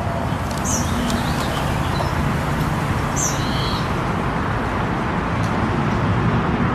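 Steady outdoor background noise, like distant traffic, with a few short high bird chirps, one under a second in and another about three seconds in.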